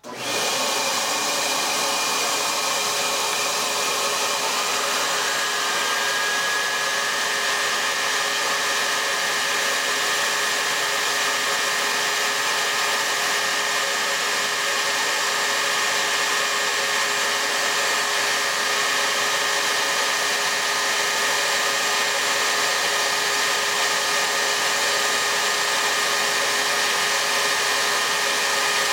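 High-speed milling spindle motor starting up and running steadily with a whine, a faint tone gliding up and settling about five seconds in, as a small end mill cuts a slot in a clear plastic cover.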